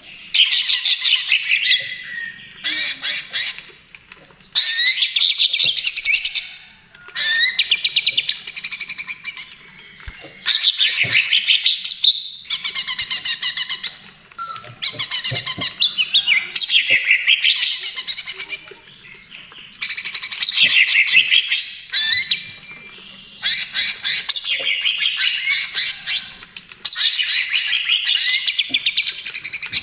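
A green leafbird (cucak ijo) singing continuously. Its song comes in loud phrases of rapid, chattering notes, each a second or two long, broken by short pauses.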